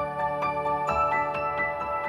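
Background music: struck notes in an even pattern, about four a second, over held chords that shift about a second in.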